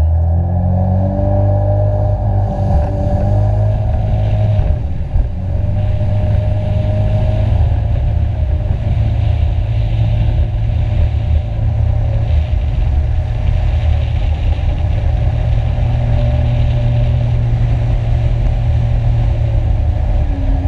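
Jet ski engine running at high speed, its pitch climbing over the first couple of seconds and then holding fairly steady over a heavy low rumble.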